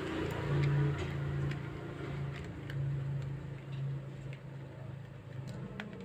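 A screwdriver turning small screws out of a plastic toy RC car body, giving faint scattered ticks and clicks. Under them runs a low hum that fades out about four seconds in.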